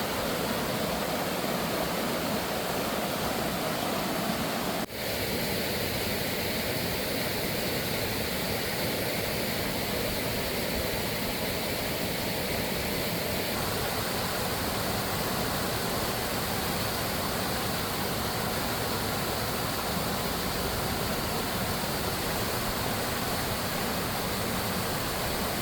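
Rushing water of a mountain stream, a steady even rush that dips for a moment about five seconds in.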